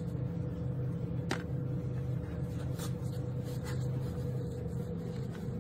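A steady low hum of a few fixed tones, with a few faint clicks, the clearest about a second in.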